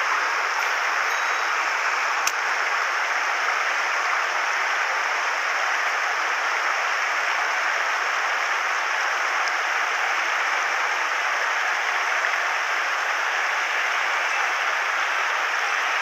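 Shallow mountain stream rushing over cobbles: a steady, even rush of water, with one sharp click about two seconds in.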